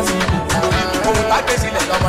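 Upbeat dance music with a steady drum beat, about four beats a second, under sustained melodic lines.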